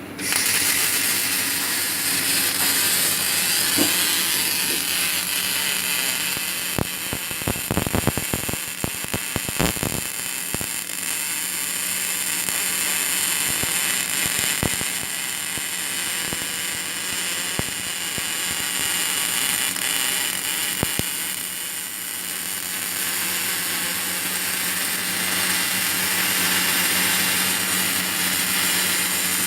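Arc welding by an ABB IRB 1400 robot's torch: a steady hiss and crackle that starts abruptly, with a run of sharp crackles and pops about 7 to 10 seconds in.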